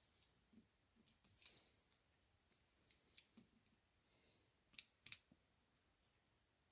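Faint, scattered clicks and taps of small metal carburetor parts being handled and worked loose on the bench, about half a dozen short ticks with near silence between them.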